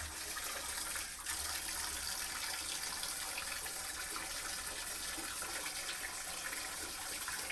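Bathtub tap running, water pouring steadily into the tub, with a brief dip about a second in.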